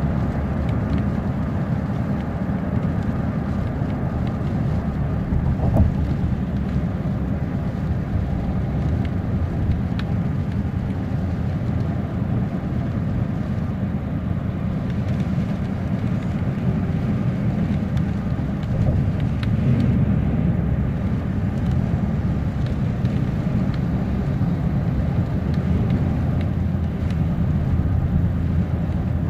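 Steady low rumble of road and tyre noise heard inside a car's cabin, driving on a wet highway in the rain.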